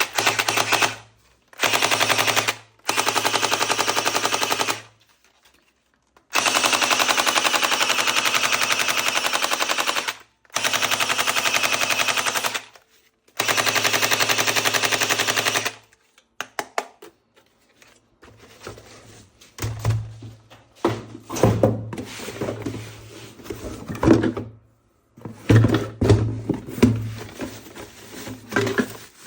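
Toy gun firing on full auto: six bursts of rapid, even clicking, the longest about four seconds. Over the last dozen seconds come irregular clicks and clatter.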